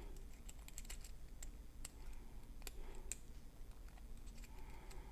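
Light, irregular metallic clicks and ticks of a lock pick and tension wrench working the pins of a six-pin pin-tumbler lock, with a pin overset, as the picker suspects.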